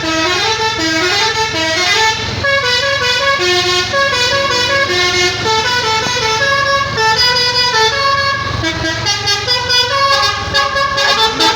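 Basuri 'telolet' musical air horn on a bus playing a fast tune of quick stepped notes, one after another, over the low rumble of the bus engine.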